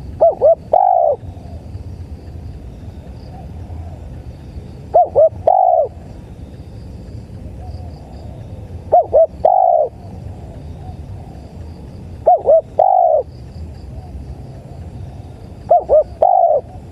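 Spotted dove cooing: five phrases a few seconds apart, each two short coos followed by a longer, falling coo. Crickets chirp faintly underneath.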